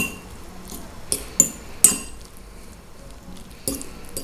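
Metal fork clinking and scraping against a ceramic plate while stirring grated cheese and egg: a string of sharp clinks, with a quieter stretch of soft scraping in the middle.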